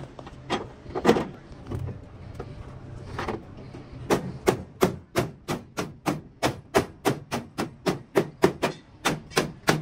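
Hammer blows on truck-cabin sheet metal. A few spaced strikes come first, then from about four seconds in a steady run of about three blows a second.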